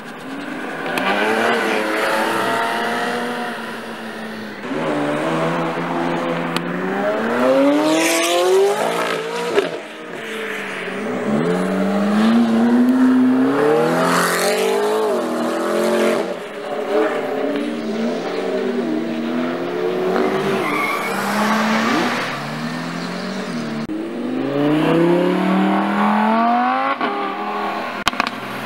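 Supercars, among them a Ferrari F50 and a McLaren spider, accelerating away one after another with loud revving engines. Their notes climb repeatedly and drop back at each gearshift.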